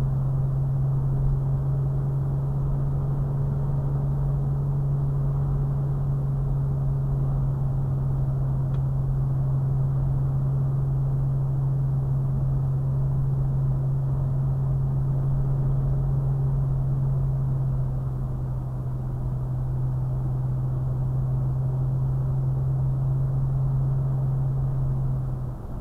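Cabin noise of a Toyota FJ Cruiser cruising at about 45 mph: a steady low engine and drivetrain drone over tyre and road rumble, easing slightly a little past halfway.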